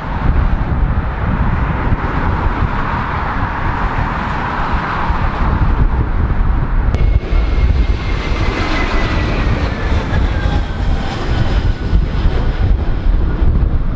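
Jet airliner engines heard through heavy wind buffeting on the microphone. First a widebody's engines rumble as it rolls out on the runway. After a sudden cut, a British Airways Airbus A320 on approach gives a steady engine whine that slowly falls in pitch.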